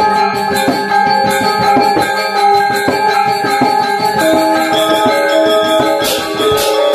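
Balinese gamelan gong ensemble playing a lelambatan piece: bronze keyed metallophones and gongs ring in sustained, overlapping tones, with the melody shifting about four seconds in. A run of bright, crashing strokes comes near the end.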